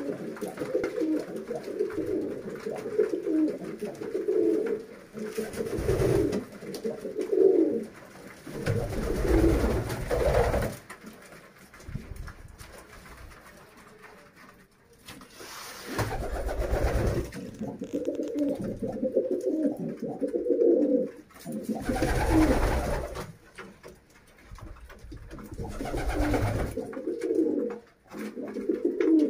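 A group of domestic pigeons cooing, many low coos overlapping almost without pause. Every few seconds a short, louder rush of noise cuts in, and there is a quieter gap about halfway through.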